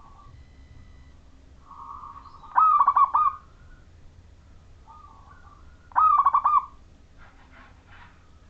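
Majapahit-type zebra dove (perkutut) singing two cooing phrases about three seconds apart. Each phrase begins with a soft lead-in and ends in a loud, quick stutter of coos.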